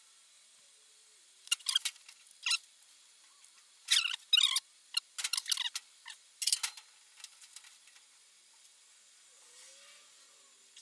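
Several short rustles and scrapes, clustered between about one and a half and seven seconds in: paper letter templates being slid about and rearranged on a steel worktable.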